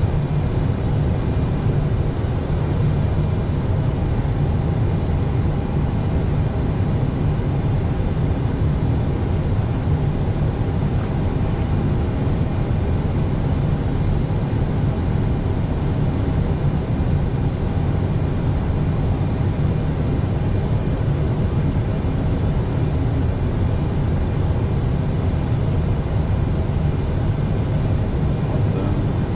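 Airliner cockpit noise in flight on approach with flaps set: a steady deep rumble of airflow and engines with a fainter hiss above, unchanging throughout.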